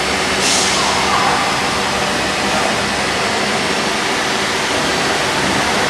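Steady, loud industrial machinery noise with a faint hum running through it, and a short burst of high hiss about half a second in.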